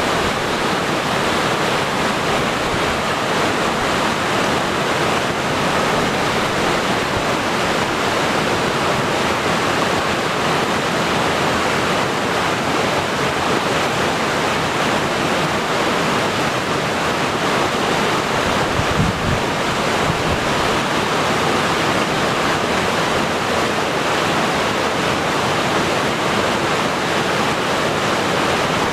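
A raging waterfall heard from close below, the falling water making a loud, steady, unbroken rush. A brief low thump about two-thirds of the way through.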